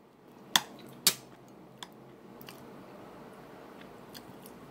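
Metal cutlery clicking twice against a ceramic plate during a meal, about half a second and a second in, followed by a few fainter ticks over a low steady background hiss.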